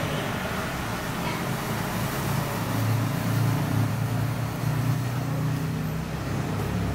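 A steady low hum that drifts slowly in pitch, over a constant background noise.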